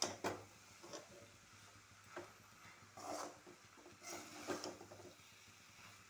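Steel spatula stirring and turning cooked rice in an aluminium kadai: a handful of soft, irregular scrapes and knocks of metal on the pan, spaced roughly a second apart.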